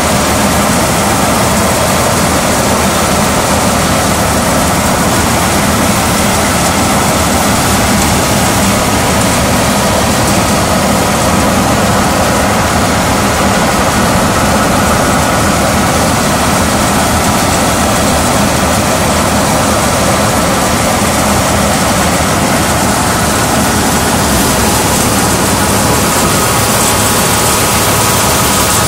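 A tractor engine and the pulley-driven threshing machine it powers, running steadily at work.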